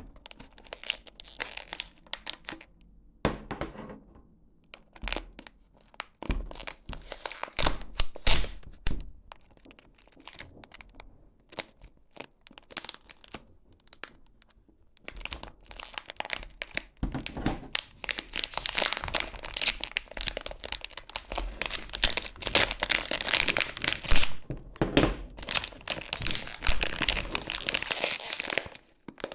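Pipe tobacco packaging being handled and opened: irregular crinkling and tearing of wrapping with occasional sharp clicks and knocks, busier and more continuous in the second half.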